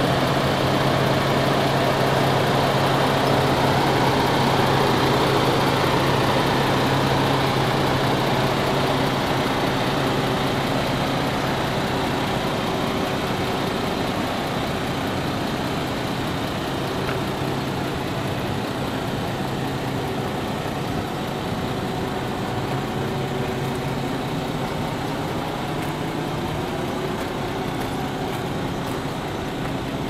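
MAN TGS 32.400 concrete mixer truck's six-cylinder diesel engine idling steadily.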